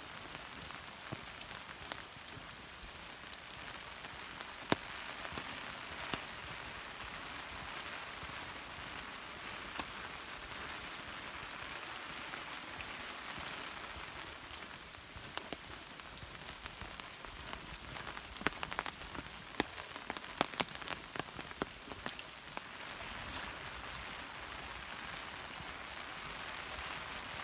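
Heavy rain pouring down steadily, an even hiss with scattered sharp taps of single drops, more of them past the middle.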